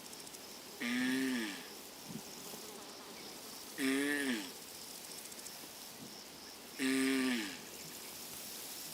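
Three drawn-out groaning calls from a mating turtle, about three seconds apart, each dipping in pitch at its end. They sit over a faint steady insect buzz.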